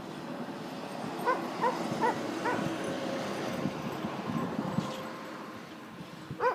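A dog barking four times in quick succession, starting about a second in.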